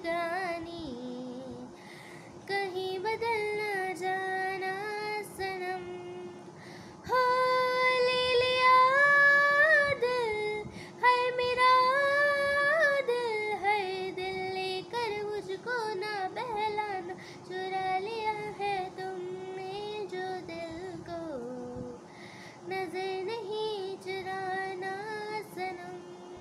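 A woman singing a Hindi film melody solo, in long held, bending notes. The phrases in the middle of the passage are louder and higher.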